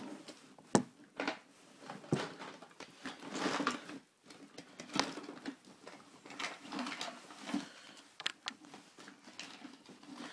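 A screwdriver working at a Zippo lighter to pry it open: irregular sharp metal clicks and knocks with scraping and handling noise between them.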